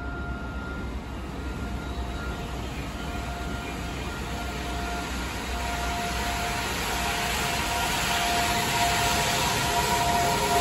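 EV-E301 series battery-electric train pulling out of a station: the electric traction whine and rolling noise grow steadily louder as it picks up speed, with thin whining tones strengthening in the second half.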